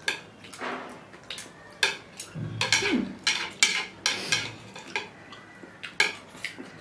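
Chopsticks clicking and scraping against a bowl in irregular sharp taps, several a second, as noodles are picked up.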